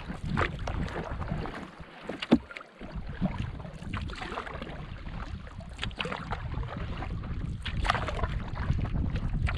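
Canoe paddling into a stiff wind: wooden paddle strokes splashing about every two seconds over wind rumbling on the microphone, with one sharp knock a little over two seconds in.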